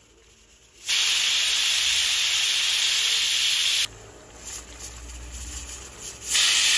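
Aluminium pressure cooker's weighted whistle venting steam at full pressure: a loud hiss about a second in that lasts some three seconds and stops sharply, then a second hiss starts near the end. Each such whistle is counted to time the cooking.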